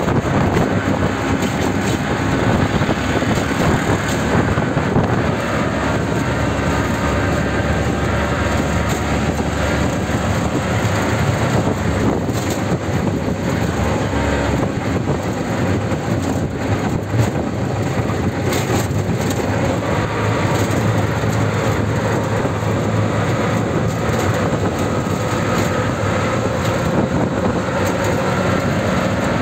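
Auto-rickshaw on the move: its small engine runs steadily under loud road and wind noise coming in through the open sides, with short rattles now and then.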